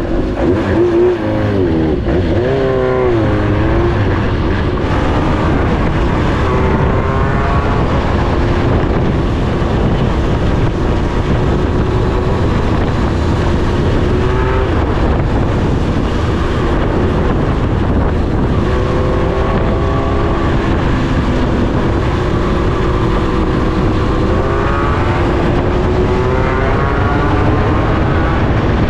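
Yamaha XJ550 motorcycle engine running through an Ikazuchi aftermarket muffler, its pitch rising and falling again and again as the throttle is worked.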